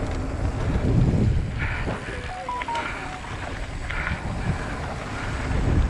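Wind buffeting a GoPro's microphone over the rumble of a mountain bike rolling fast down a dirt trail, with a few brief high chirps about halfway through.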